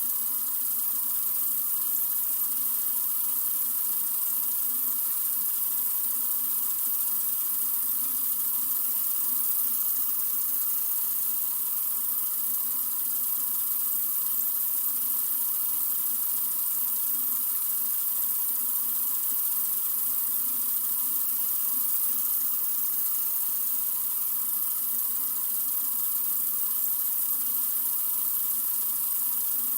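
Water running steadily from a sink faucet: an even, unbroken hiss with no change in flow.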